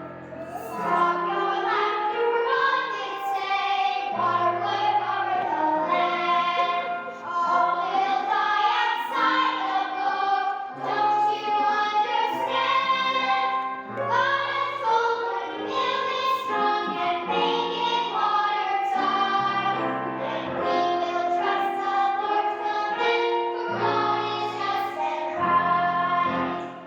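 Children's choir singing a song with instrumental accompaniment, sustained bass notes under the melody.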